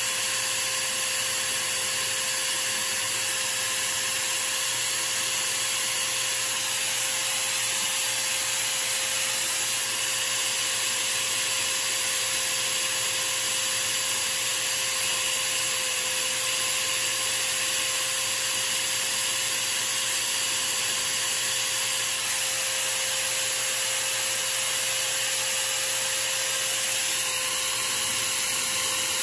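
Electric drill running steadily at constant speed with a steady whine, spinning a small blank while a hand file rubs against it to shape it.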